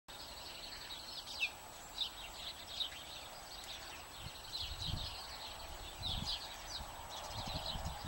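House sparrows chirping repeatedly in short, high notes, with a few low rumbles in the second half.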